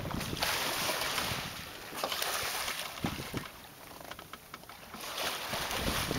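Water rushing and splashing along the hull of a sailing ketch under way, with wind on the microphone. The rushing swells and eases in about three surges.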